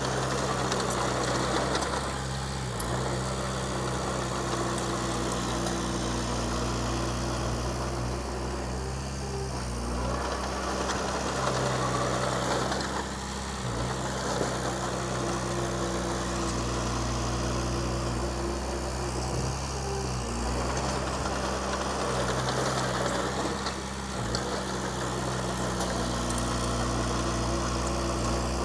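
Diesel engine of a Komatsu D20P bulldozer running steadily, with a brief change in its sound about every ten seconds.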